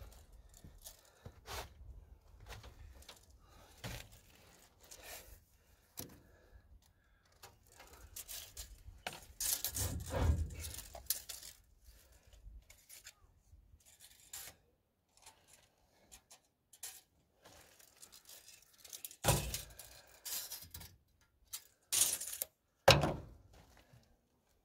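Scattered handling noises as tools and metal parts are moved: light clicks, scrapes and rustling, with three louder knocks in the last third.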